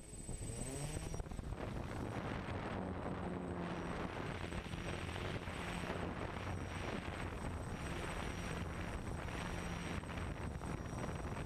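Camera drone's electric motors and propellers whirring up close, with a steady buzzing hum under a rushing hiss of prop wash. The pitch climbs about a second in as the drone lifts off, then holds fairly even in flight.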